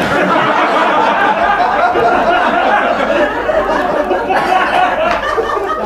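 A live audience laughing, many voices at once, in reaction to a joke's punchline.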